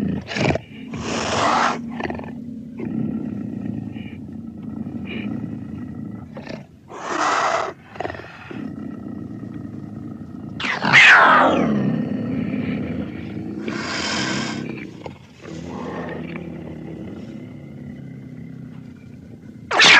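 Animated predator character's growling and snarling sound effects: a low growl runs throughout, broken by breathy hisses every few seconds. About eleven seconds in comes a loud snarling cry that falls in pitch, and a further loud snarl arrives near the end.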